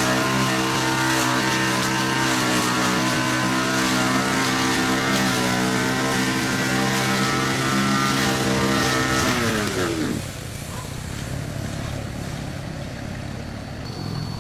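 An engine running at a steady speed, then slowing down and stopping about ten seconds in, leaving a softer, even noise.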